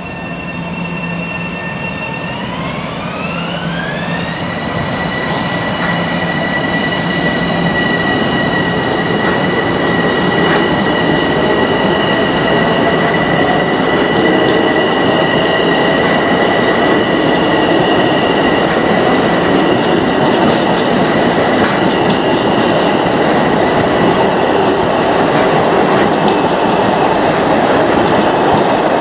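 LIRR M7 electric train pulling away: its motor whine rises in pitch over a couple of seconds, then holds steady while the running noise grows louder. In the second half, wheels click over rail joints.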